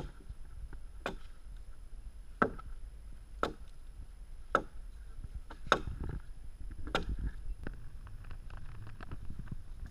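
Chopping blows of a hand-held blade cutting into the wood of a dugout canoe hull as it is hollowed out, seven strokes at about one a second, followed by softer scattered knocks and handling noise near the end.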